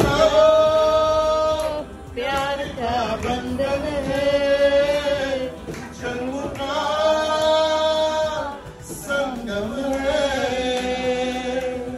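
Music with a singing voice holding long, drawn-out notes, several in a row with short breaks between them.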